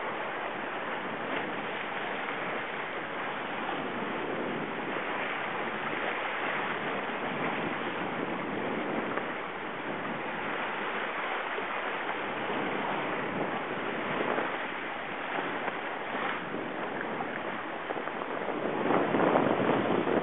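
Steady rush of wind and water aboard a sailing yacht under way, with wind buffeting the microphone; the rush swells now and then, most strongly near the end.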